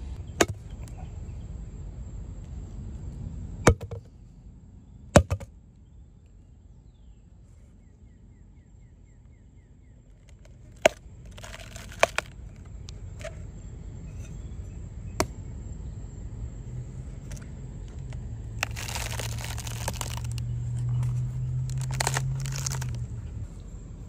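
A knife chopping into and prying open a green coconut: several sharp, spaced-out cracks, and later a few longer stretches of crunching and tearing as the husk and shell split.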